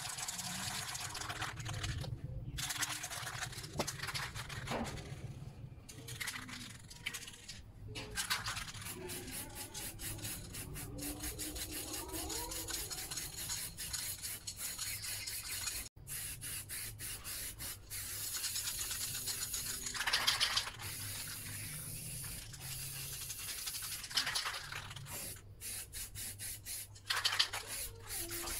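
Aerosol spray-paint can hissing in repeated strokes, broken by many short pauses, as paint goes onto the bare steel of a sanded cabinet.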